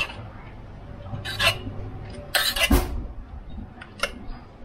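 Kitchen utensils scraping and clinking against a dish in two short bursts, one about a second in and one past two seconds, the second ending in a dull knock, with a sharp click near the end.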